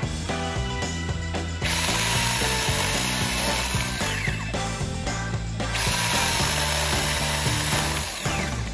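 Battery-powered mini chainsaw running and cutting through thin branches in two loud bursts of about two and a half seconds each, with a dense ratcheting sound from the chain. Background music with a steady beat runs underneath.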